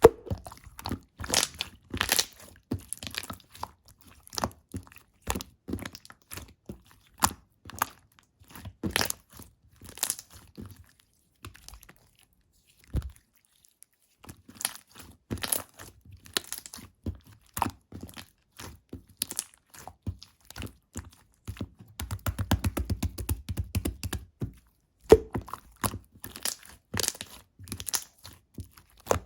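Pink semi-clear slime being squeezed and worked by hand, giving irregular crackling clicks and pops. About 22 s in, a fast run of dense clicks lasts a couple of seconds; around 12 to 14 s it goes nearly quiet.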